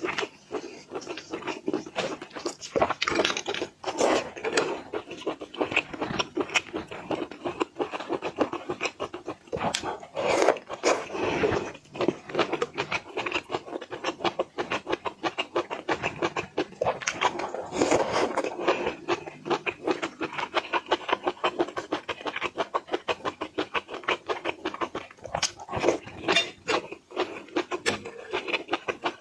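A person eating seafood close to the microphone: a fast, continuous run of wet chewing, lip smacking and slurping.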